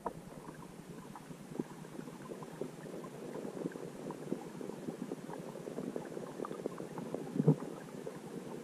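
Underwater ambience heard through a submerged camera: a steady muffled wash of water noise peppered with many small irregular clicks and pops, and one louder knock about seven and a half seconds in.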